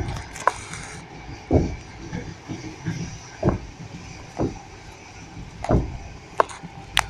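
Train wheels knocking over rail joints, heard from inside a passenger carriage: a steady rumble with heavy, uneven thuds every second or two and a few sharper clicks.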